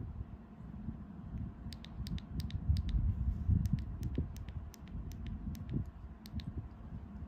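Buttons on a handheld prototype remote control clicking as they are pressed again and again: a run of about twenty sharp clicks, several in quick pairs, starting about two seconds in and stopping shortly before the end, over a low rumble.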